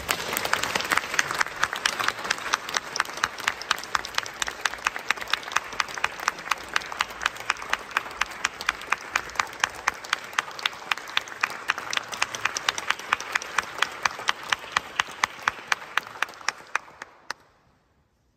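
Audience applause, with one pair of hands near the microphone standing out in sharp, even claps about three a second; the applause fades away about seventeen seconds in.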